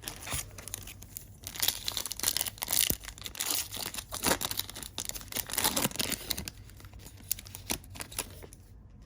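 A trading-card pack wrapper being torn open and crinkled: a long run of crackling rips and rustles that stops shortly before the end.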